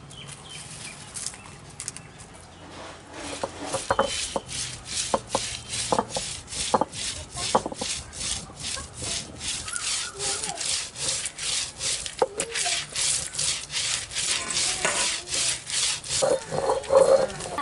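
Dry-roasted whole spices (red chillies, coriander seed, pepper, fennel and cumin) being crushed on a stone grinding slab (ammi) with a cylindrical stone roller. Each back-and-forth stroke makes a gritty rubbing scrape, with crackles as the dry chillies and seeds break. From about three seconds in it settles into a steady rhythm of about two to three strokes a second.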